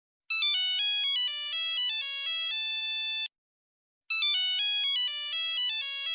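Electronic ringtone-like alert melody: a short tune of quick stepping notes with a bright, beepy tone, ending on a held note, played twice with a short silent gap between.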